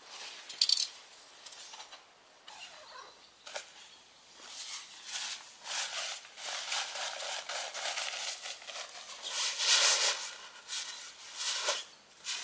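Synthetic tent fabric and mesh rustling and swishing as a screen tent is handled and set up, in irregular bursts, with a sharp burst near the start and the loudest stretch about ten seconds in.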